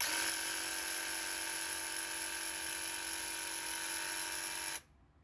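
Graco TrueCoat 360 VSP handheld airless sprayer's electric pump running with the trigger held, a steady buzz that cuts off abruptly after nearly five seconds. The sprayer is set to prime and is pumping water, which primes and flushes it before first use.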